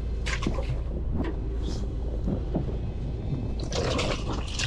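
Steady low rumble of a fishing boat's engine, with a few short bursts of water splashing and rushing against the hull, the longest near the end.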